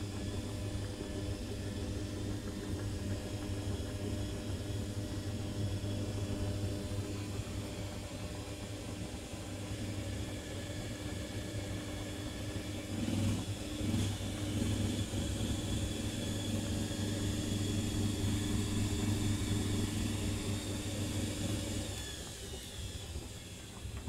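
Currys Essentials washing machine running, its motor giving a steady hum as the drum turns the load in foamy water during the distribution stage before a spin. The motor hum stops near the end.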